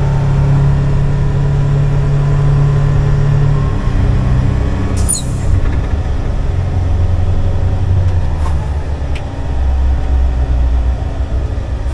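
Heavy 8x8 wrecker truck's diesel engine running as the truck drives, its hum dropping lower about four seconds in. A brief high squeal comes about a second later.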